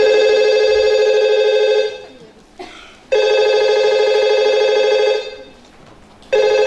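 Telephone ringing: three rings of about two seconds each, a second apart, the third starting near the end.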